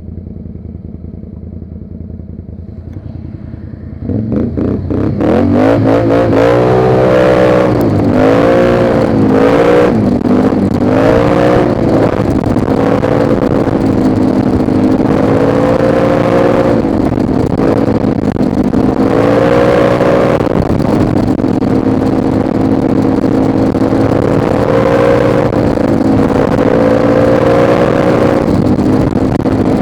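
ATV engine idling, then speeding up sharply about four seconds in as the quad pulls away. The pitch rises and falls several times before settling into a steady run with small swells in speed.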